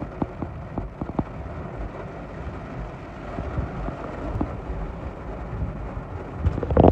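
Heavy rain on a car's windshield and roof, heard from inside the car: a steady wash with a low rumble and scattered drops ticking on the glass. A loud thump comes near the end.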